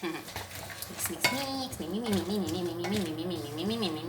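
A cooking utensil clinking and scraping in a pan as chicken, potatoes and carrots are stirred together. From about a second in, a wavering hum runs over it.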